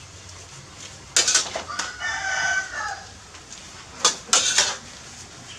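Metal spatula clattering against a steel wok during stir-frying, sharp strikes about a second in and again near the end. Between them a rooster crows once in the background.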